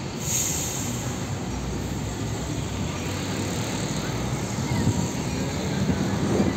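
Heavy diesel tractor-trailer hauling two shipping containers passing close by at low speed: steady engine rumble with tyre and trailer rattle noise.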